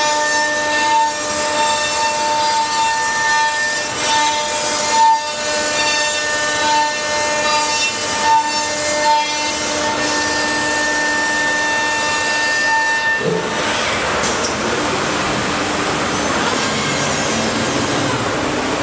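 CNC router spindle milling a curved cut into a wooden door panel: a steady whine with higher overtones over the hiss of cutting. About 13 seconds in the whine stops and a steady rushing noise carries on.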